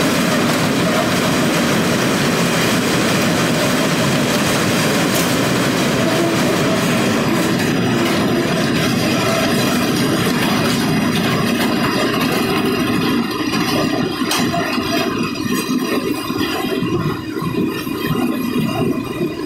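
New Holland 1010 bale wagon's bale elevator running, a steady loud mechanical clatter of chains and drive, with a few sharp knocks along the way.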